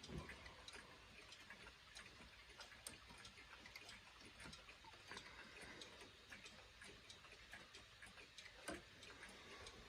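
Mechanical chime clocks ticking faintly, the ticks uneven as if more than one clock is running, with one slightly louder click near the end.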